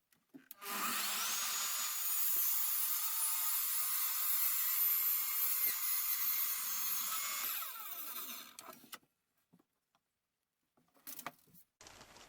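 Electric power saw cutting a 30-degree angle in an old decking board. Its motor whines up about half a second in, runs steadily for about seven seconds, then winds down and stops.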